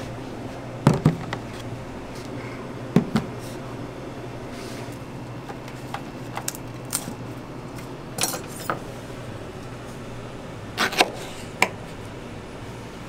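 Kitchen food-prep knocks and clatter: plastic fruit containers and a plastic cutting board handled on a steel counter, then a knife cutting a banana on the board, as about a dozen short sharp knocks, some in quick pairs. A steady low hum runs underneath.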